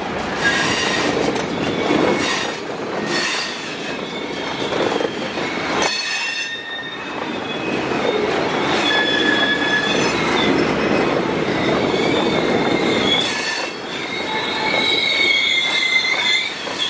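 Freight train of tank cars and hoppers rolling through a rail yard: steel wheels squealing against the rails in high steady tones over the rumble and clanking of the cars, the squeal strongest about nine seconds in and again near the end.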